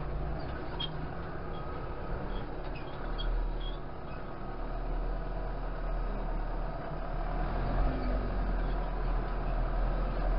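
Farm tractor's engine running steadily as it drives, heard from inside the cab.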